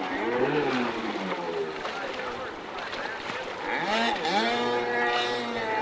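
Stand-up jet ski's two-stroke engine revving hard during freestyle manoeuvres, its pitch swooping up and down as the throttle is worked, with a sharp drop and climb back about four seconds in.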